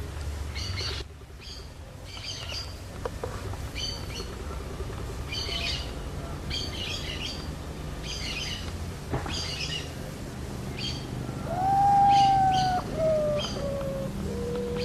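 An urutau (common potoo) sings its mournful falling whistle near the end: one long note gliding down, then a few shorter, lower notes. Short high chirps repeat about once a second in the background.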